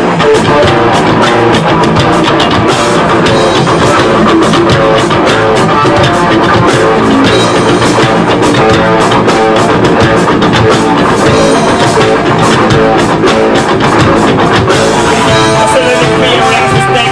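A live rock band playing loud: electric guitar, bass guitar and drum kit in a steady, dense passage.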